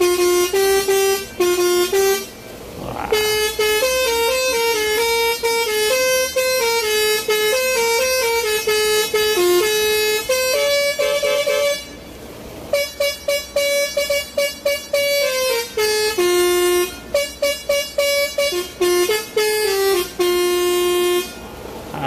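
Basuri (telolet) musical air horn on a lorry playing a tune. It sounds a string of held and quickly changing horn notes, breaking off briefly about two and a half seconds in and again about twelve seconds in. It plays a run of short, quick notes in the later part.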